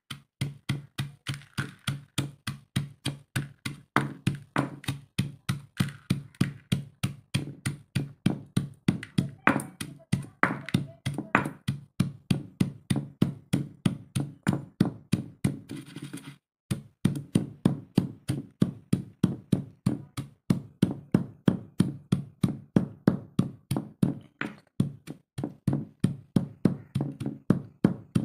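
Stone pestle pounding dry grains in a stone mortar: a steady run of dull thuds, about three a second, each with a crunch of grain being crushed. It breaks off briefly partway through, then the pounding resumes.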